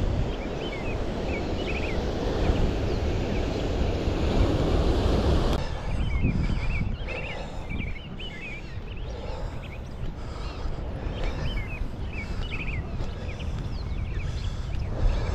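Surf on a rocky shoreline with wind buffeting the microphone; the rush drops abruptly about five and a half seconds in, and short high chirps sound throughout.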